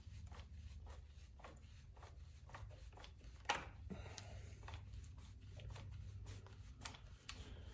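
Faint clicks, taps and light scraping of small chainsaw parts being handled and worked on, with one sharper click about three and a half seconds in.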